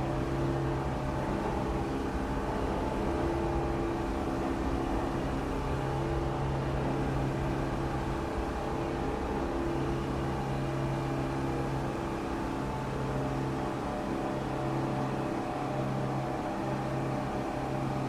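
New York City subway station ambience: a steady mechanical hum with several held low tones over a noisy background, from trains and station machinery.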